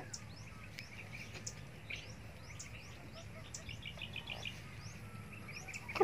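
Small birds chirping: many short, high, quick sweeping chirps scattered throughout, with a brief rapid trill about four seconds in, over a low steady background hum.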